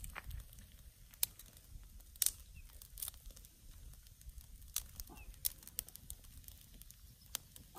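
Small fire of dry twigs crackling, with scattered sharp snaps at irregular intervals.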